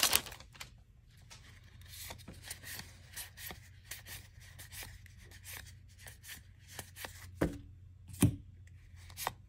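Magic: The Gathering trading cards being flicked through in the hands, a run of soft card-on-card clicks and slides, with two louder knocks near the end.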